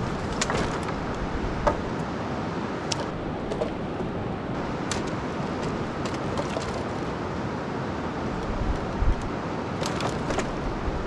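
Logs and sticks knocking and clacking a few scattered times as they are stacked against a log shelter, over a steady rushing noise.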